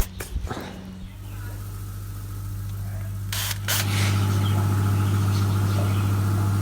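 A sharp click, then a steady low machine hum starts about a second in and grows louder just after a short hiss near the middle.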